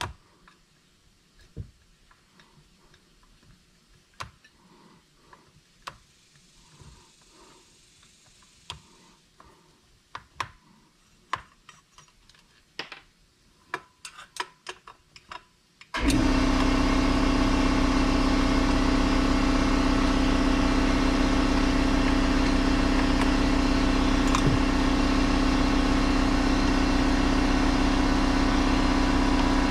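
Scattered small metal clicks and knocks of a screwdriver working chainsaw muffler bolts. About halfway through, a shop air compressor kicks on suddenly and runs steadily with a loud hum, drowning out the tool sounds.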